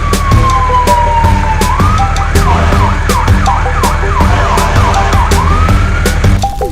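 Cartoon siren sound effect over upbeat background music. It opens with a long falling whistle, then wails in quick falling sweeps about three times a second, and ends on a rising glide.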